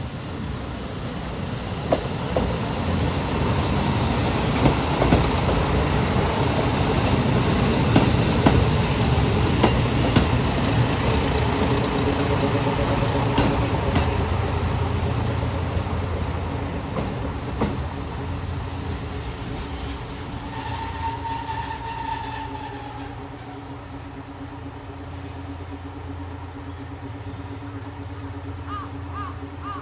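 KiHa 54 diesel railcar pulling away: engine note rising as it accelerates, wheels clicking over rail joints, and a thin wheel squeal. It is loudest about 8 s in and then fades as it moves off.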